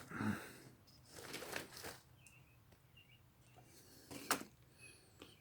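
Faint rustling and handling noises with a sharp click a little past four seconds in, over faint bird chirps.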